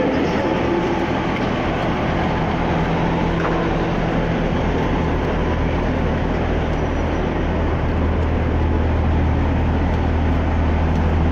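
First Great Western diesel multiple unit standing at the platform, its engine running with a steady low drone; the deep hum grows stronger about four seconds in.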